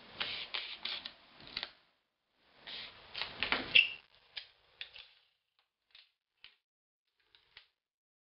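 Paper rustling and crinkling in two short spells as a paper airplane is creased and folded by hand, followed by a few faint clicks and ticks.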